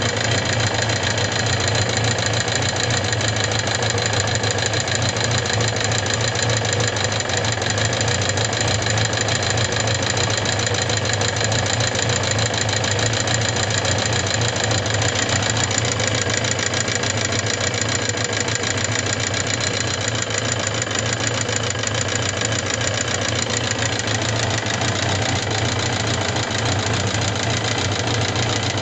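Suzuki GSX750S Katana's air-cooled inline-four engine running at a steady speed with a fast rattling, clicking tick. The cause of this abnormal noise is still unknown, even after the rocker arms, camshaft and cam chain parts were replaced and the tappet clearance was adjusted.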